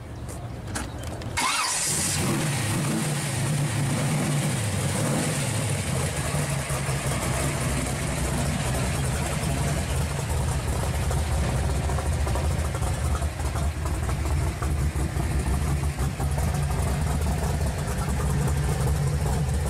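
V8 engine of a Chevrolet Vega wagon starting up about a second and a half in, then idling steadily.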